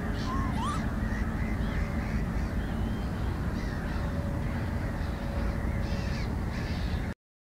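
Several wild birds calling over a steady low rumble of background noise: scattered short high chirps, a rising whistled call about half a second in, and a thin held note a little after the middle. Everything cuts off abruptly near the end.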